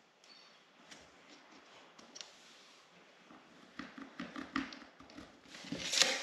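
Faint clicks and small taps of hand tools being handled on the floor: a pencil marking a vinyl plank and a tape measure being moved, growing busier and louder near the end.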